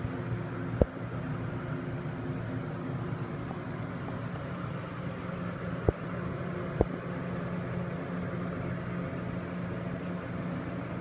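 Steady mechanical hum with a low drone, and three short sharp clicks: one about a second in and two close together around six to seven seconds in.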